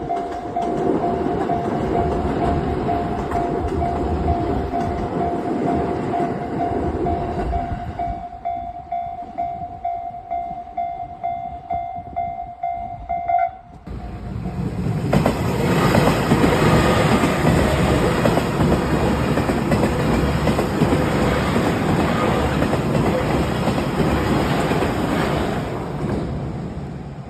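Level crossing alarm ringing in a fast repeating tone while a train rolls through with wheel and track noise. The tone keeps ringing after the train noise dies down about 8 seconds in. After a sudden cut about 14 seconds in, another train passes loudly with clattering wheels for about ten seconds, then fades.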